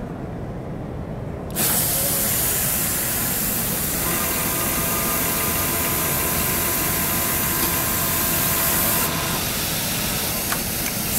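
Pneumatic automatic bottom hemmer on a Pegasus industrial sewing machine in operation: a loud hiss of compressed air starts suddenly about one and a half seconds in, and the sewing machine runs with a steady whine from about four to nine seconds. A couple of sharp clicks come near the end.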